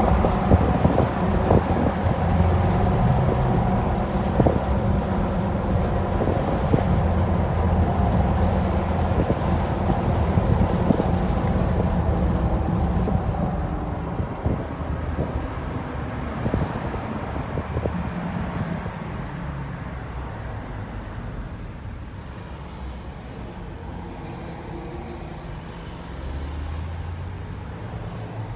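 Tire and road noise from 35-inch Toyo Open Country AT2 all-terrain tires on 20-inch wheels, rolling on pavement, heard in the cab with the windows down so wind noise mixes in. The steady rumble eases off somewhat past the middle and picks up again near the end.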